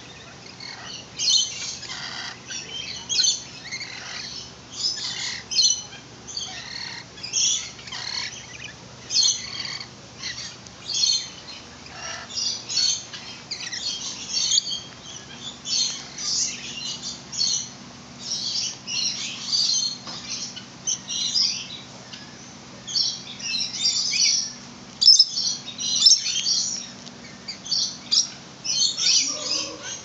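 A flock of aviary birds chirping and squawking without pause: dense, high-pitched calls in quick overlapping clusters.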